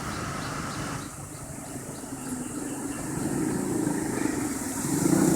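Street traffic: motor vehicle engines running, with one engine growing louder toward the end as it comes closer.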